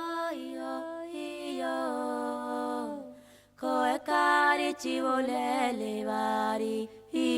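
A voice singing unaccompanied in long, held notes that glide slowly between pitches, a chant-like phrase that breaks off about three seconds in and resumes.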